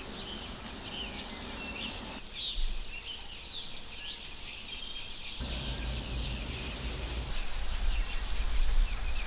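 Outdoor ambience of small birds chirping repeatedly over a steady, high insect drone, with a low rumble underneath that cuts out for a few seconds in the middle.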